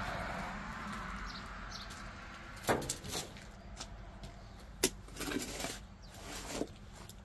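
A steel spade digging into packed soil beside a concrete sidewalk. The blade is jabbed in and scraped several times, with sharp chopping strikes about a third and two-thirds of the way through. A steady rush fades out in the first couple of seconds.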